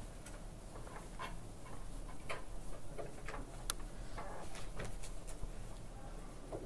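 Faint, irregular clicks and taps over a low steady hum, with one sharper click a little past halfway.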